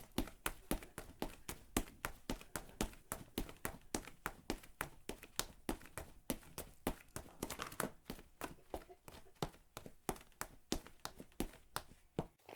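Footsteps of a person running on slightly crunchy ground: quick, regular footfalls, about three to four a second, each with a crisp crunch.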